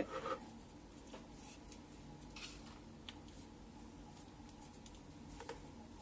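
Faint scattered clicks and taps of hands handling a table fan's metal grille and blade assembly, over a low steady hum.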